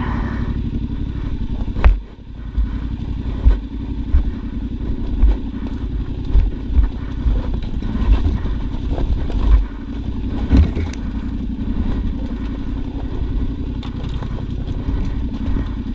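Yamaha Ténéré 700 World Raid's parallel-twin engine running steadily while the bike rides a rough, washed-out trail, with repeated thuds and clatter as it jolts over the ground; the sharpest knock comes about two seconds in.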